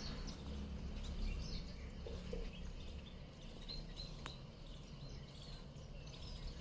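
Small munias giving short, faint high chirps now and then while feeding, over a steady low background rumble.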